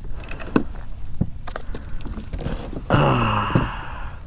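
Scattered small knocks and clicks of fishing tackle and a fish being handled on a plastic kayak. About three seconds in there is a short, falling vocal sound.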